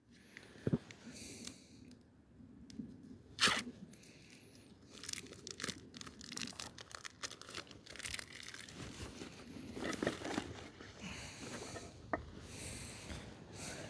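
Packaging being torn open and crinkled by hand, with scattered sharp clicks and rustles, likely as the meat is unwrapped for the pan.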